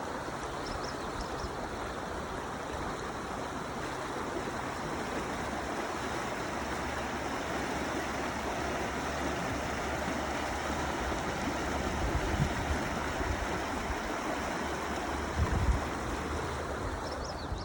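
Steady rush of flowing stream water, with a couple of brief low buffets of wind on the microphone in the second half.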